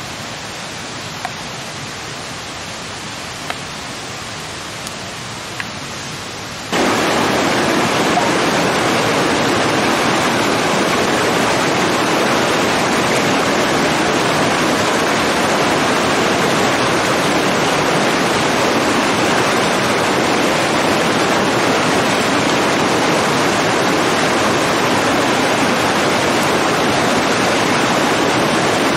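Steady rush of running water from a small forest stream. It jumps sharply louder about seven seconds in, and a few faint clicks come before the jump.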